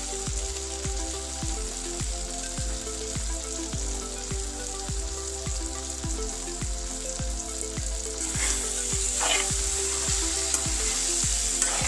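Tinda (round gourd) curry sizzling in a kadhai on high heat as its moisture cooks off. From about eight seconds in the sizzle grows louder, and a spatula stirs and scrapes through the vegetables a few times.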